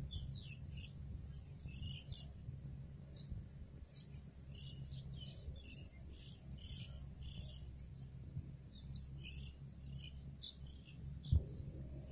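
Small birds chirping over and over in short calls, over a low rumble, with a single sharp knock about eleven seconds in.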